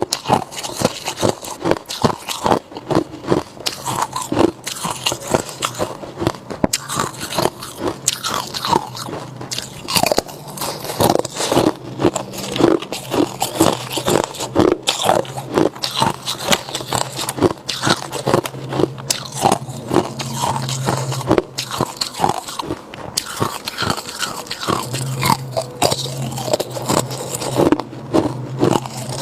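A person biting and chewing ice: a continuous run of crunches, several a second. A faint low hum runs under them through the middle and again near the end.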